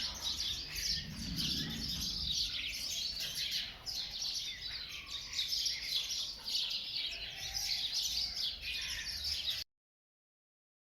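Small birds chirping in a busy, continuous chorus that cuts off suddenly near the end.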